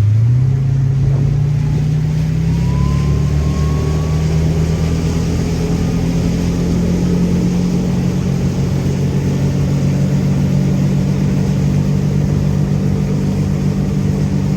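Ford 5.8-litre V8 inboard engine of a Sport Nautique 210 ski boat speeding up over the first few seconds, then running steadily at the higher speed.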